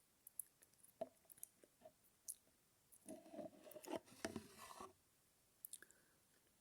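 Quiet, close-up sounds of someone eating mashed banana: scattered wet mouth clicks, with a denser stretch of squishy chewing about three to five seconds in.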